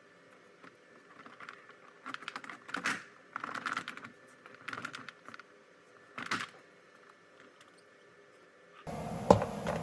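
Light plastic clicking and rattling from car door trim parts being handled and pried, in several short bursts, with a sharper click near the end.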